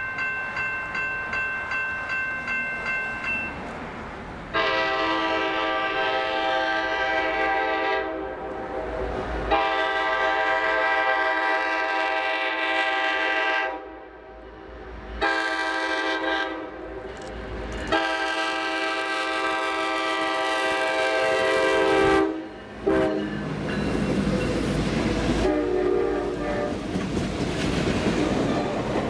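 A bell ringing in steady pulses about twice a second, then the lead F9A diesel locomotive's air horn sounding the grade-crossing signal: long, long, short, long. The locomotives and then the passenger coaches pass close by with a rumble and clattering wheels.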